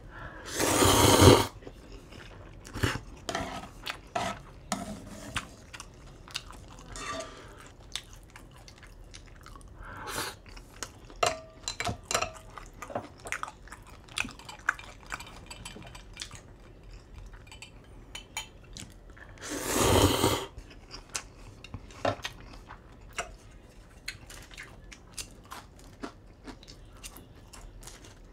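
Close-miked eating: a loud slurp of ramen noodles about a second in and another long slurp around twenty seconds in, with chewing and chopsticks clicking against the pan and dishes in between.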